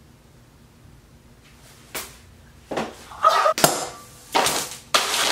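A sharp click about two seconds in, then a quick run of loud whooshes and smacks, comedic fight-style sound effects played over exaggerated throws of ingredients into a glass bowl.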